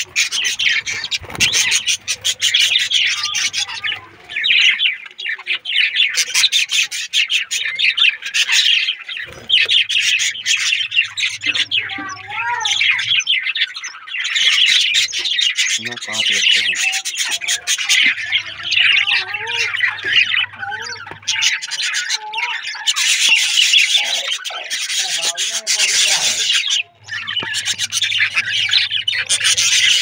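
A brood of budgerigar chicks in a clay-pot nest, chirping and squeaking without pause in rapid, rasping calls.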